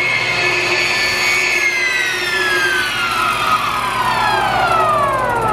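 IKA DR3-9P Dispax inline high shear mixer with its 20 HP explosion-proof motor running with a steady high whine; about one and a half seconds in, the whine starts to fall steadily in pitch as the mixer slows down, over a steady low hum.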